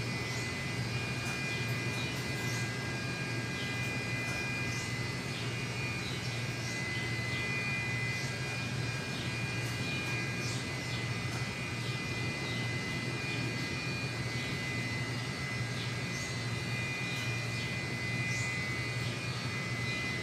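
Steady machine hum with a low drone and two thin high whining tones, unchanging throughout, with short high chirps coming and going over it.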